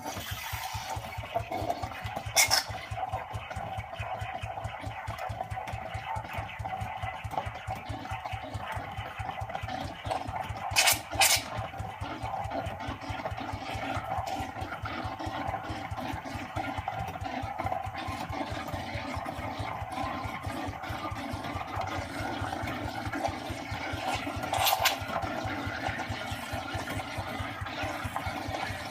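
Saeco Incanto espresso machine steaming milk through its steam wand: a steady hiss over the rapid pulsing of the pump, broken by three sharp clinks. It is not steaming properly, a sign that the wand's frothing sleeve has not been pushed down into place.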